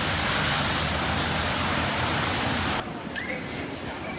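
Wind rushing over the microphone, a loud even roar that cuts off suddenly almost three seconds in, leaving a quieter city-street background.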